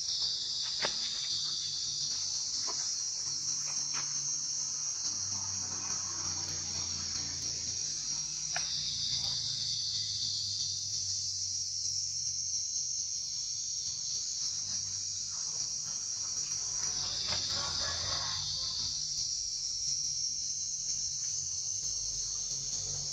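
Insect chorus, a steady high-pitched chirring that swells louder about eight seconds in and again near seventeen seconds, with a faint low hum and a few soft clicks beneath it.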